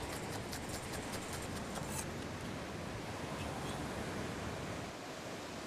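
Chef's knife chopping green onion on a wooden cutting board: quick light taps for about the first two seconds, then stopping, over a steady hiss of surf and wind.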